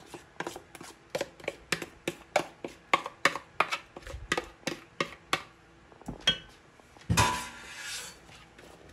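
Quick light knocks, about four a second, of a bowl of kimchi seasoning paste tapped against the rim of a pan as the paste is emptied onto cubed radish. A short scraping noise follows near the end.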